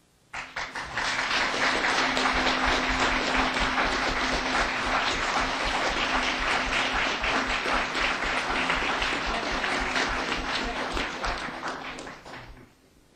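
Audience applauding. The clapping starts abruptly about a third of a second in, holds steady for about eleven seconds, then tapers off over the last second or so.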